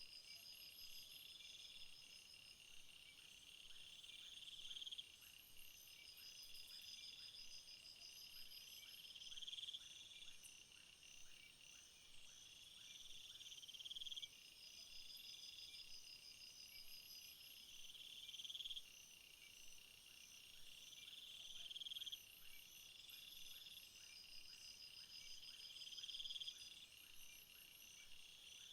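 Faint chorus of crickets and other meadow insects chirping. One buzzing phrase swells and stops about every four seconds, over quicker pulsed trills higher up and a steady high hum.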